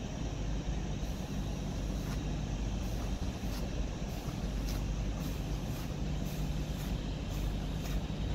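LNER Azuma train moving through the station with a steady low rumble. A regular clicking of its wheels over the rail joints comes closer and closer together.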